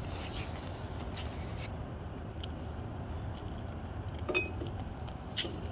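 Faint clicks and clinks from a homemade wooden trebuchet as its throwing arm is pulled down and reset, with a sharper click and a brief squeak a little past four seconds in. A steady low rumble runs underneath.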